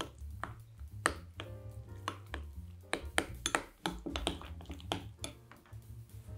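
A metal spoon clinking and scraping against a small glass bowl while stirring a thick ricotta mixture, in short irregular clinks about two or three a second, over background music with a steady bass.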